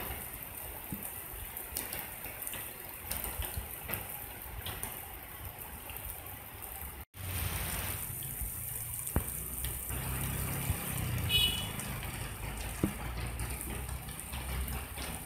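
Rain falling and rainwater running over wet ground, a steady hiss. It cuts out for an instant about seven seconds in and comes back with a deeper rumble underneath.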